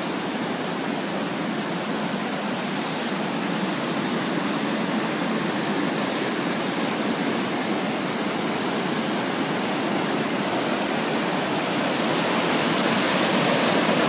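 A large waterfall with heavy, churning flow, rushing steadily and growing slowly louder.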